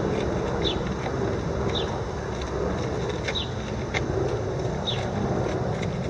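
Steady rumble of city traffic, with a small bird's short, falling chirp repeated about once a second.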